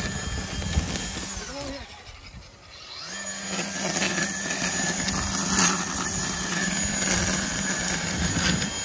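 60-volt cordless string trimmer running as its line cuts through weeds and grass. Its electric motor whine winds down about a second and a half in, then spins back up about a second later and holds steady.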